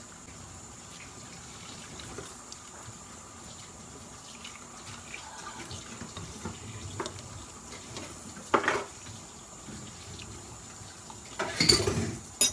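Tap water running steadily into a kitchen sink, with a few sudden louder knocks: one a little past the middle and a cluster near the end.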